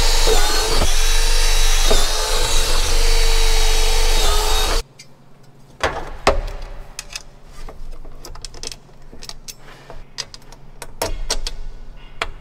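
Power drill running steadily under load, with small dips in speed, while boring through a combine's tailboard spreader fin; it stops abruptly about five seconds in. After that come light clicks and taps of a galvanized steel cover plate being handled and held in place.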